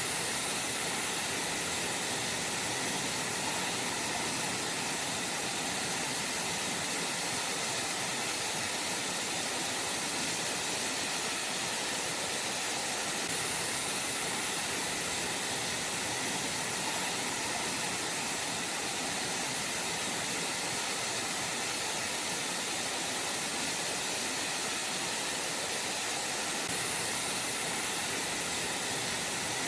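Bigăr waterfall: water falling and splashing in a steady, unbroken rush.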